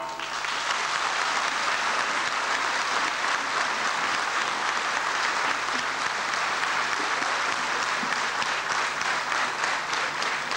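Audience applause filling the hall as the dance music stops just at the start. Separate claps stand out more toward the end.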